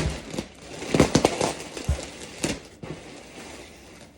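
A cardboard shipping box being opened and its packaging handled: a run of sharp clicks, knocks and crinkly crackles, busiest about a second in, then quieter.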